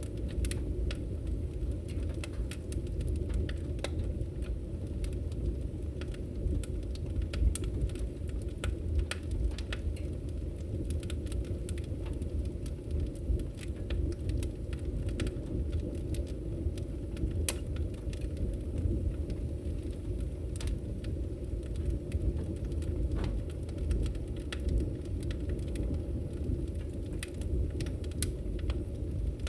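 Campfire burning: a steady low rumble of flames with scattered sharp crackles and pops from the wood.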